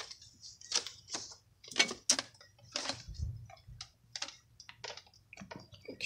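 Irregular light clicks and rustles, a couple a second, from hands working automotive wire into a car's door opening.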